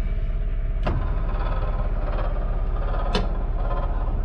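Motorized entry-step cover sliding open, with a sharp click about a second in and another about three seconds in. Under it is the steady low drone of the motorhome's onboard generator running.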